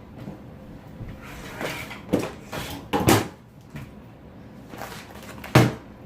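A series of irregular knocks and bumps, like a cupboard or drawer being handled, with the sharpest one about five and a half seconds in.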